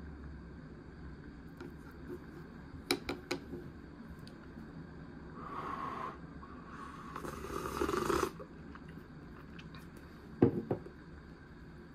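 Tableware handling: a few sharp clicks about three seconds in, a rubbing scrape lasting a couple of seconds in the middle, then a knock with two quick taps near the end as a lacquered soup bowl is set down on a wooden table.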